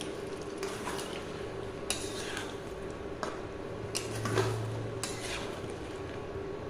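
Spatula stirring thick chicken gravy in a non-stick kadai, scraping and knocking against the pan about once a second, over a steady low hum.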